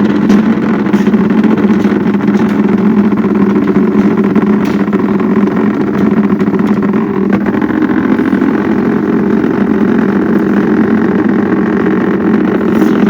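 An engine of concrete-pouring machinery running steadily at a constant pace, with a few faint clicks over it.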